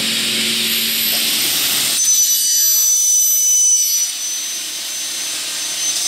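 Automatic corner-connector cutting saw running a cut in auto mode, its blade sawing through a metal profile: a harsh, high-pitched noise with a thin steady whine. It grows loudest about two seconds in and falls away about four seconds in.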